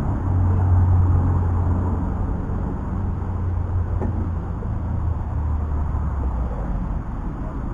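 A steady low mechanical hum, like a motor running, easing off a little after about six seconds, with a faint click about four seconds in.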